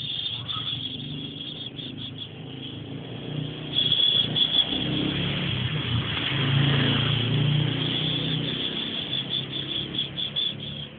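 A steady high-pitched insect-like buzz over a low rumble that swells about midway and then eases, like a vehicle going by.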